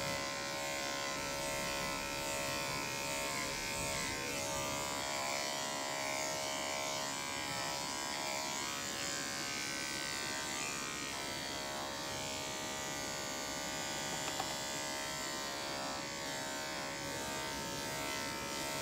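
Electric dog grooming clipper fitted with a #4 blade running steadily, a constant buzz as it skims the coat off a West Highland White Terrier's sides.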